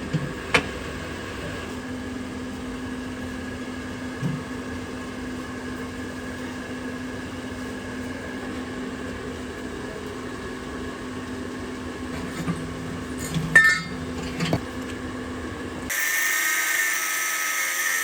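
A small motor runs with a steady hum, with a few sharp metallic clinks. About two seconds before the end it gives way to a louder, higher-pitched whirr of a power tool.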